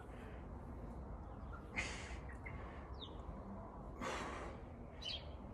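A person breathing out hard twice during ab crunches, short breathy puffs about two seconds apart, one with each rep.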